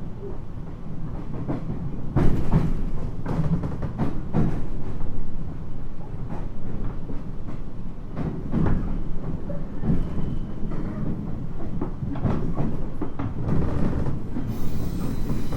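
Interior running sound of a 719 series electric train: steady rumble of wheels on rail, broken by irregular knocks and rattles that the uploader puts down to rough track. A hiss sets in near the end.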